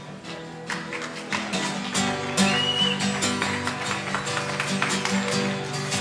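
Instrumental passage of a pop song: plucked guitar notes over steady held lower notes, with a brief high gliding note about two and a half seconds in.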